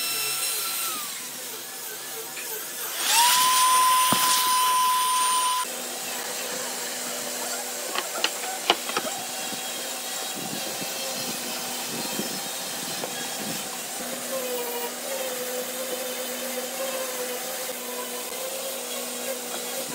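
Handheld electric router running with a steady whine that winds down about a second in; a couple of seconds later a router runs again at full speed for about three seconds and cuts off suddenly. A few sharp clicks follow, then a faint steady hum.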